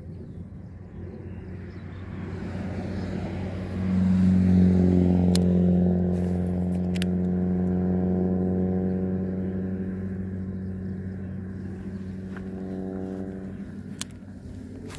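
A vehicle engine running at a steady pitch, growing loud about four seconds in and then slowly fading, with a few sharp clicks over it.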